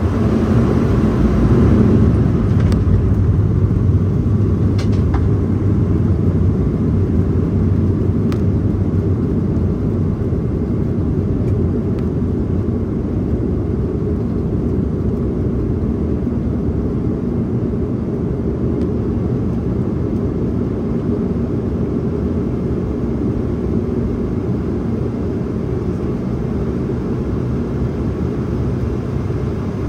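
Bombardier Dash 8 Q400's twin Pratt & Whitney PW150A turboprops and propellers running after touchdown, heard from inside the cabin as a loud low drone. It is loudest about two seconds in, then eases off slowly as the aircraft slows on the runway.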